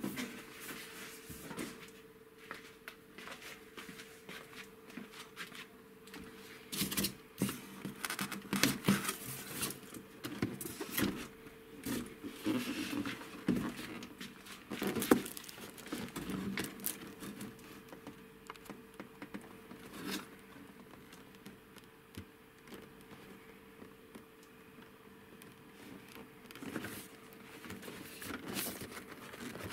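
Cardboard packaging being handled: irregular rustles, scrapes and taps as a boxed toy is lifted out of a cardboard shipping carton and turned over, busiest around the middle, over a faint steady hum.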